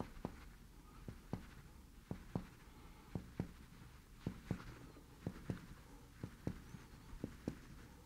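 Mediate finger percussion on the abdomen over the liver to map the liver span: a fingertip strikes the finger laid flat on the belly in soft paired taps, about one pair a second.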